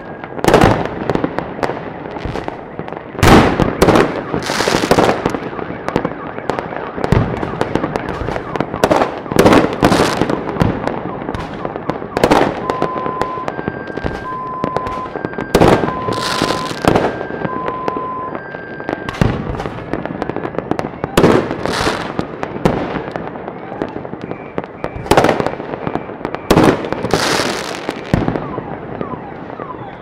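Fireworks going off continuously: many loud bangs at irregular intervals, several followed by a fizzing hiss, over a constant background of distant pops. About halfway through, a two-note tone alternates in the background for several seconds.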